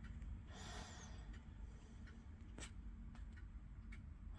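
Faint ticking of a 1973 Warmink Friese tail wall clock's pendulum movement, a string of short ticks with one sharper click a little past halfway. A brief soft rush of noise about half a second in.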